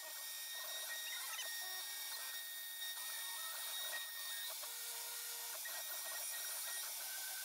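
CNC milling machine's end mill cutting into a clear plastic block: a steady machine whine with several high tones over a hissing cutting noise.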